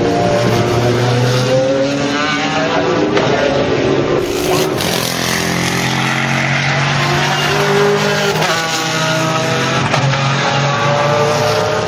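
Pagani Zonda C12 GR's Mercedes-AMG 6.0-litre V12 racing at high revs, its note climbing in pitch through the gears and dropping at each shift, several times over.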